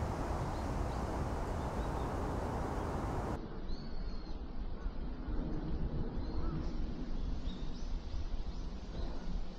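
Wild birds giving short, high calls at intervals over outdoor ambience. Heavy wind rumble on the microphone stops abruptly about a third of the way in, leaving quieter background with the calls clearer.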